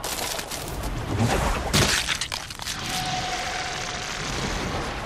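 Anime sound effects of a mask cracking and breaking apart: sharp cracks and impacts over dense rumbling noise, with a thin steady tone ringing for about a second in the middle.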